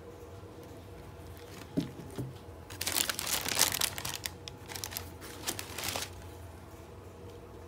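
Tissue paper and wrapping crinkling and rustling for about three seconds as a sneaker is handled in its shoebox, after two short knocks.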